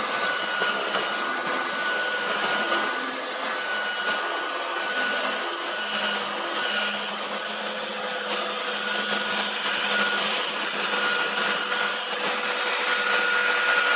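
Electric power tool motor running steadily, with a constant high whine over the noise.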